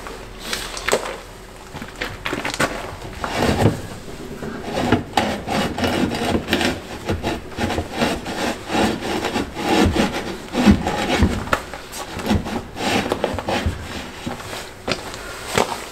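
Irregular scraping and rubbing by hand, with scattered knocks, several strokes a second, as someone works under a laid-up boat's hull.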